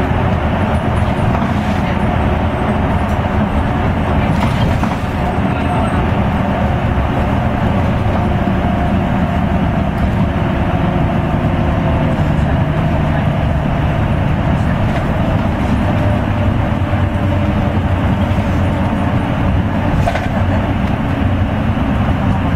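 Route bus heard from inside its cabin while driving: the engine's steady drone mixed with road and tyre noise.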